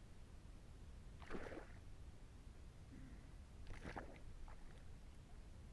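Two short water splashes, about a second in and again near four seconds in, as a small hooked pike thrashes at the surface beside the angler's hands.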